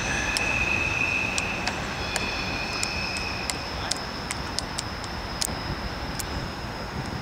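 Freight train of insulated boxcars rolling away, its steady rumble slowly fading. Thin high-pitched wheel squeal runs over it, one tone dying out about halfway while a higher one carries on, with scattered sharp clicks.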